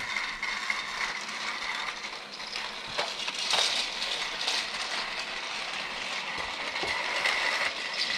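Battery-powered Trackmaster Thomas toy engine running on plastic track: its small motor and gears whine steadily, with a few clicks and knocks from the wheels and track. The wheels are getting poor traction on the plastic track.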